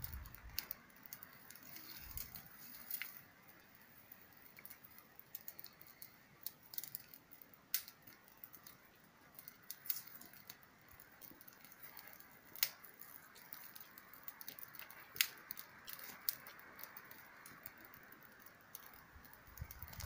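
Small wood campfire crackling faintly: sparse, irregular sharp pops and ticks over a soft hiss.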